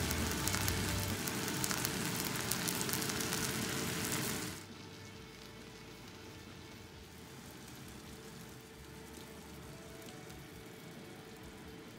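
Bone-in steak sizzling in a frying pan as it is basted with its drippings. About four and a half seconds in, the sizzling cuts off abruptly, leaving only a faint hiss.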